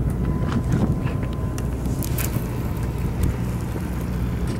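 A boat's engine running with a steady low hum, wind buffeting the microphone, and a few light clicks.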